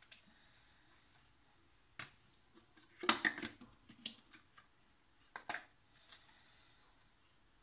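Plastic clicks and knocks from handling the lid of a Moulinex blender jar: one sharp click about two seconds in, a quick clatter of knocks a second later, and two more clicks a little after five seconds.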